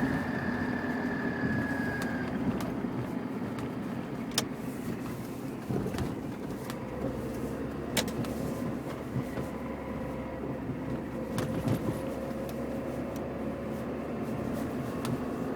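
Chevrolet Niva running with the howl and whistle it is being recorded for. A thin high whistle fades out about two seconds in, then a lower whine slowly rises in pitch over a steady rumble, with a few short clicks.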